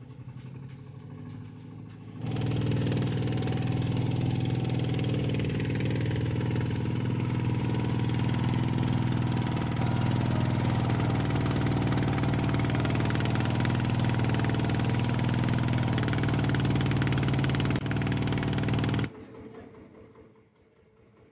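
A small passenger boat's engine running steadily at a constant pitch under way. It comes in suddenly about two seconds in and cuts off suddenly near the end.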